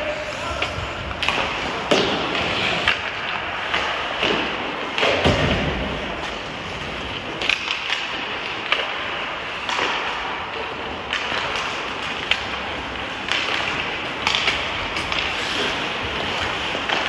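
Ice hockey play: skate blades scraping and carving on the ice, with sharp clicks and knocks of sticks hitting the puck and the ice, scattered irregularly.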